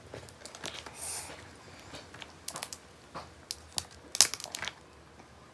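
Cooked mud crab being cracked and pulled apart by hand: a series of sharp shell cracks and crackles, the loudest just after four seconds as the body shell is broken open.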